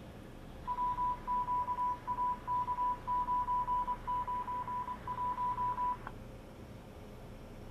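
An electronic beeper sounding one high steady tone in rapid, uneven pulses for about five seconds, then cutting off.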